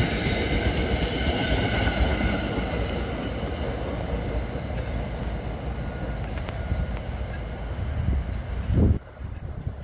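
NJ Transit commuter train's coaches and cab car rolling past and away on the rails: a loud low rumble of wheels on track that slowly fades. For the first few seconds a steady high ringing sits over the rumble. The sound drops suddenly near the end.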